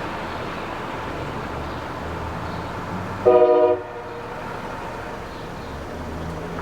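One short blast of a locomotive air horn, about half a second long, over a steady low rumble.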